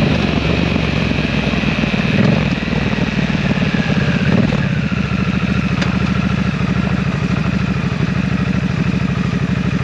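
A 2023 Harley-Davidson Nightster Special's 975 cc V-twin idles through an S&S Grand National slip-on muffler. It gets two short, light throttle blips, about two and four seconds in.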